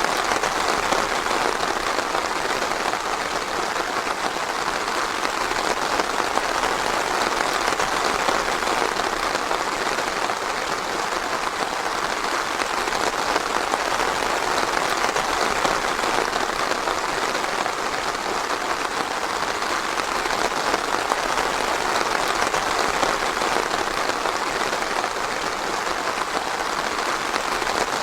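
Steady rain pattering on forest foliage and ground, an even dense patter of drops with no let-up.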